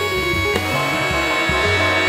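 Jazz ensemble music: held horn chords over a moving bass line and light drums.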